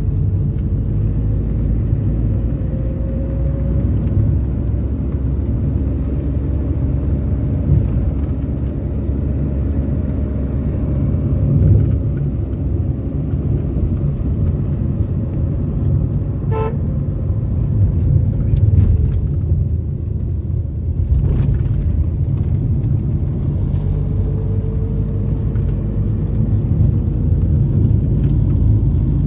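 A car driving on the road: a steady low rumble of engine and road noise, with vehicle horns tooting now and then.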